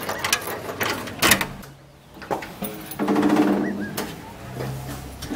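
Keys clicking and rattling in a metal gate's lock, then the gate swinging open with a steady, rattling creak from its hinge in the second half.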